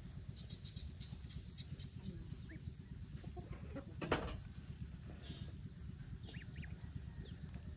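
Hybrid lion-head goose goslings peeping in short, high chirps, some in quick runs of three or four, over a low steady rumble. A brief noisy burst about four seconds in is the loudest sound.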